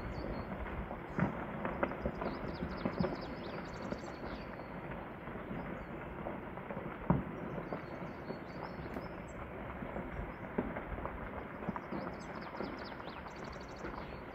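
Rockfall on a mountain face: stones clattering and knocking down a gully over a continuous rumble, with irregular sharper cracks, the loudest about seven seconds in.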